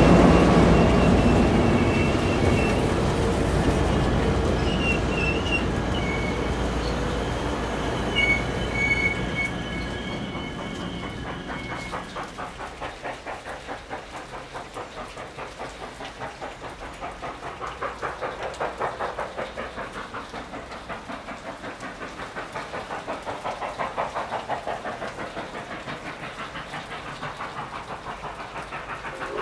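Canadian Pacific 2816, a 4-6-4 Hudson steam locomotive, rolling by with a heavy rumble and thin, high wheel squeals for about the first twelve seconds. Then Nickel Plate Road 765, a 2-8-4 Berkshire steam locomotive, working with a fast, even exhaust beat that swells and fades twice.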